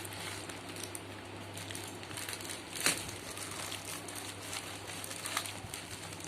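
Parcel packaging being handled and opened: soft crinkling and rustling with a sharp click near the middle, over a low steady hum.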